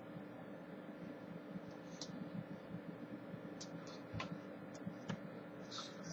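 Faint scattered taps, clicks and brushing sounds from hands and clothing as a person signs, over a steady low hum; the sharpest clicks come a little past four and five seconds in.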